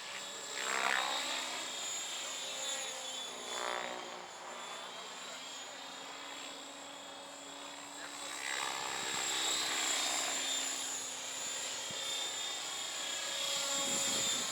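Align T-Rex 700E 3G electric RC helicopter in flight: a steady high whine from its 700MX electric motor, with the rotor's whoosh swelling and sliding in pitch as it manoeuvres and passes, about a second in, near four seconds and again around nine to ten seconds.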